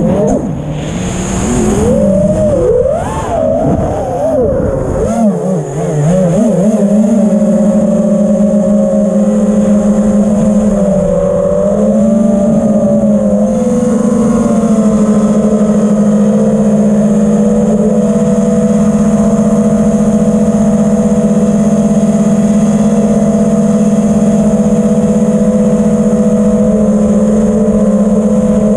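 Dingo 6 FPV quadcopter's motors and propellers whining, the pitch swinging up and down for the first few seconds as the throttle changes, then holding a steady hum.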